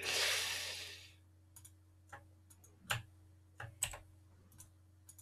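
A short breathy hiss that fades out within the first second, then a scattering of single computer mouse clicks at an uneven pace as a 3D rig is posed, over a faint steady electrical hum.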